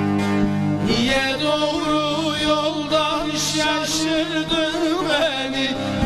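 Turkish folk song: a bağlama (long-necked saz) strummed, joined about a second in by a man singing a long, wavering, ornamented line over it.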